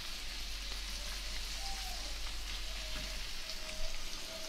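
Chopped onion, tomato and green capsicum sizzling in butter in a small frying pan on a gas flame: a steady frying hiss.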